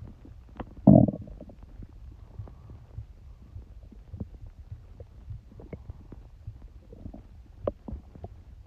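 Human stomach gurgling and rumbling: a low ongoing rumble with scattered small gurgles, one loud gurgle about a second in, and a smaller one near the end.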